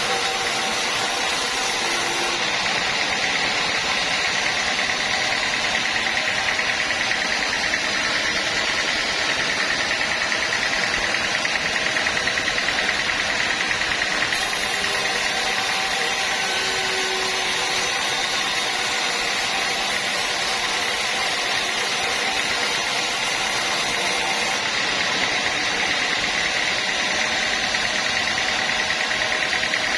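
Sawmill machinery running steadily, a constant mechanical drone with a high, even whine.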